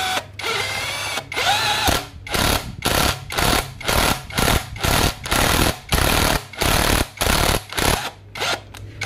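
Power drill turning a thread tap into a bolt hole in a steel bracket, to cut new threads. It runs steadily for about two seconds, then in short on-off pulses about twice a second.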